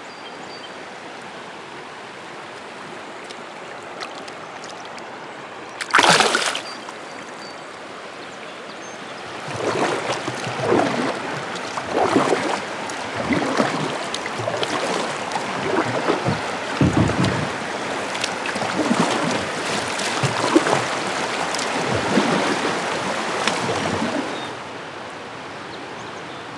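Steady rush of a shallow, rocky river current, with one loud splash about six seconds in. From about ten seconds in, kayak paddle strokes dip and swish through the water roughly once a second for some fifteen seconds, then stop.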